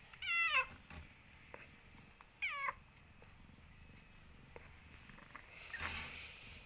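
Tortoiseshell queen cat in labour giving two short, high, wavering meows about two seconds apart, followed by a brief rustle near the end.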